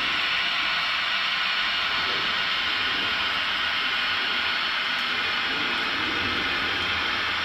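Märklin model freight train hauled by several Swiss electric locomotives fitted with ESU sound decoders, running slowly: a steady even hiss with a low rumble underneath.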